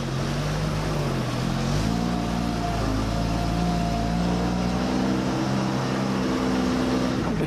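Engine of an old US Army truck labouring through deep muddy water, rising in revs about two seconds in and then holding steady under load, with a thin whine over it for a couple of seconds and water rushing and churning around the truck.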